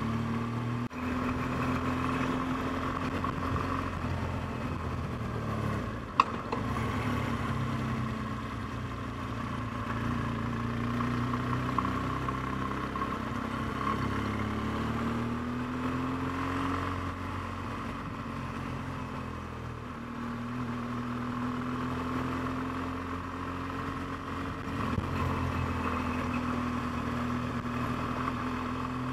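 BMW R1200GS flat-twin engine running under way, its pitch rising and falling repeatedly with the throttle, over a steady rushing noise. A single sharp click about six seconds in.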